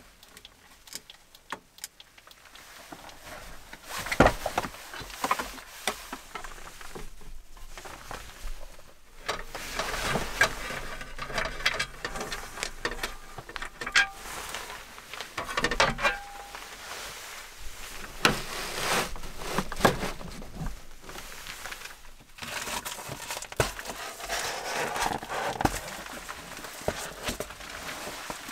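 Clicks, knocks and rustling from gear being handled inside a car: a hard gear case's lid being opened and its parts and a flat panel moved about. The sharpest knock comes about four seconds in.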